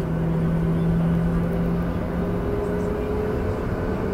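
Jet airliner engines and cabin noise heard from inside the passenger cabin during taxi: a steady rumble with a steady engine hum and a higher whine that creeps up in pitch in the second half.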